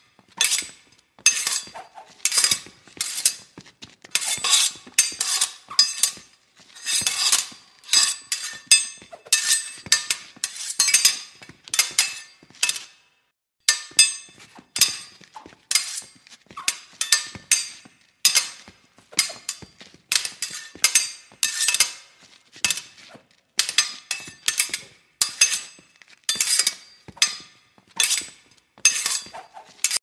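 Sword fight: steel blades clashing again and again in quick, irregular strikes, often two or three in a row, each with a short bright metallic ring. There is a brief break about halfway through.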